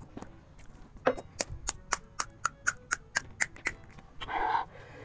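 Crisp, hollow panipuri shells crunching close to the microphone: a quick run of sharp crackles, about four a second, for nearly three seconds. A short voiced sound follows near the end.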